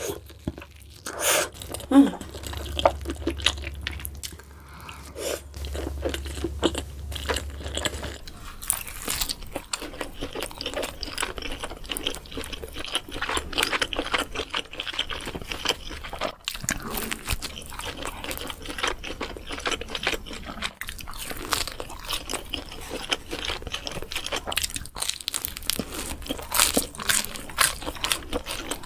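Close-miked eating: crunchy bites and chewing, with dense, irregular crackles and smacking mouth sounds throughout.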